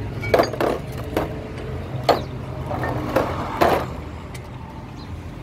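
Truck gearbox parts (steel gears, bearings and a synchro hub) clanking as they are handled on a metal tray: about six sharp metallic knocks, each ringing briefly, in the first four seconds. A steady low rumble of vehicles runs underneath.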